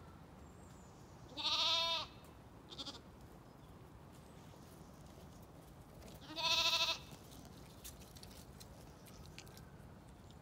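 Zwartbles sheep bleating: two loud, wavering bleats about five seconds apart, each about half a second long, with a short faint call just after the first.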